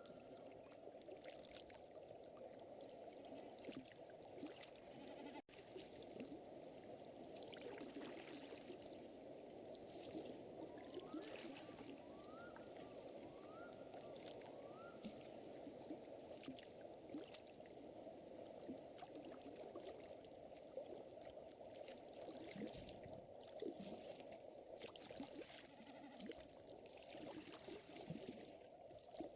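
Soft nature ambience: a steady watery wash with gentle crackling from a wood fire, heard as scattered sharp ticks. About midway, four short rising chirps of a small animal call one after another.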